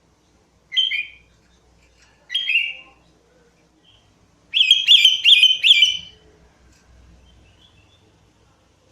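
Sooty-headed bulbul singing: two short, bright calls, then a quick phrase of about five notes in a row.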